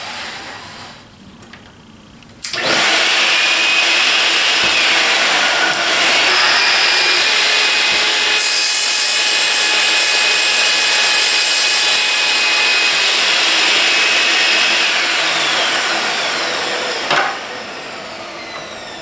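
Festool TS 55 plunge-cut track saw starting up about two seconds in and running through a cut with a steady high whine, then winding down a few seconds before the end.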